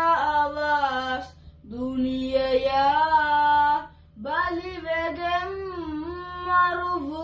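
A boy singing solo and unaccompanied, in long drawn-out notes that waver and slide in pitch. Three phrases, with short breaths about one and a half and four seconds in.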